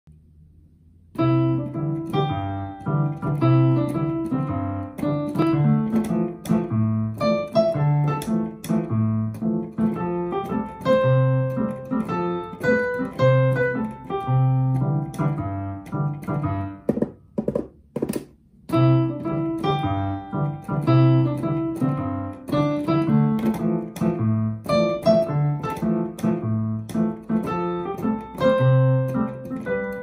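Roland RD-300SX digital stage piano on its piano sound, playing a reggae-style solo piece with a repeating low bass line under chords. The playing starts about a second in and breaks off briefly near the middle, with only a few short chords, before carrying on.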